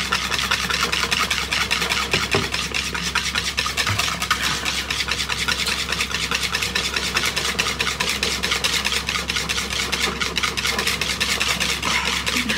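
Butter mixture being beaten by hand with a whisk in a mixing bowl: fast, steady, continuous strokes with no pause.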